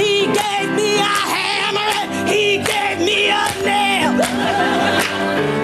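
Gospel-style singing with strong vibrato over piano accompaniment.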